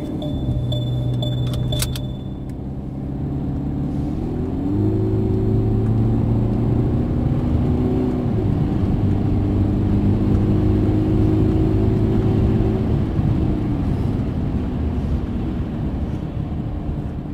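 Mercedes C220 four-cylinder diesel heard from inside the cabin while accelerating, its note stepping up and down a few times as it pulls through the gears, over steady tyre and road noise.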